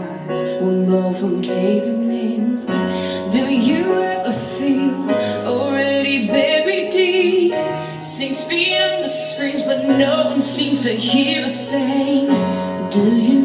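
A song with a woman singing a melody over instrumental accompaniment.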